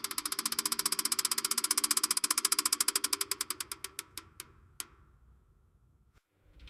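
Fence rattling: a rapid, even run of clicks that slows over a few seconds and stops about four to five seconds in. A louder, noisy sound swells in at the very end.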